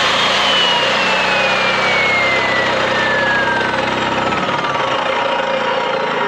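Evolution S380CPS 15-inch metal-cutting chop saw motor running, its whine peaking just after start-up and then falling steadily in pitch over several seconds as the motor slows. The generator feeding it is pushed to its maximum by the load. A steady low engine drone sits underneath.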